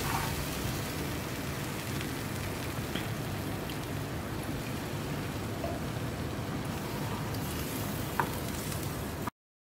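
Roux of butter and flour sizzling steadily in a nonstick frying pan as milk is stirred into it with a wooden spatula, with a few light clicks of the spatula against the pan. The sound cuts off abruptly near the end.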